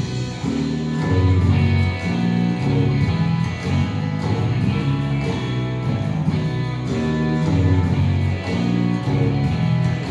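Upbeat instrumental music with strummed guitar and a bass line, the introduction to a children's song.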